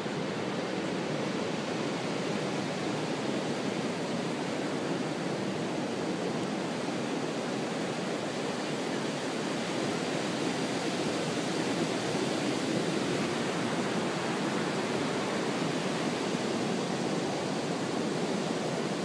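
Steady rush of ocean surf breaking, an even hiss with no single wave standing out.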